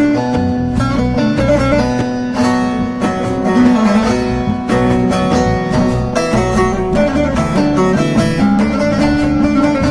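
Instrumental passage of a Turkish folk song, a busy run of notes on plucked string instruments.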